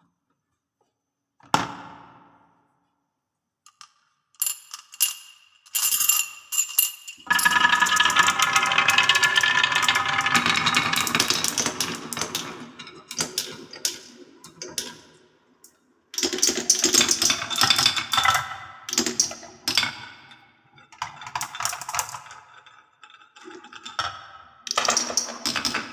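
Balls clattering and rolling down a wooden marble run. A single knock comes first, then from about four seconds in a dense rattle of clicks and knocks with some ringing tones, heaviest from about seven to twelve seconds. It then comes in separate bursts.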